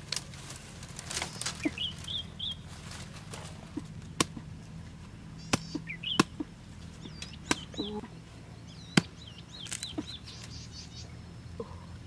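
Scattered sharp snaps and crackles of dry bamboo leaves and twigs as hands work around a bamboo shoot at the foot of the clump, with short high bird chirps now and then over a steady low hum.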